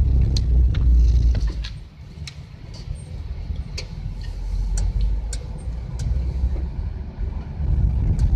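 Minibus engine and road noise heard from inside the cabin while driving slowly: a low rumble that eases about two seconds in and then builds again, with scattered small clicks.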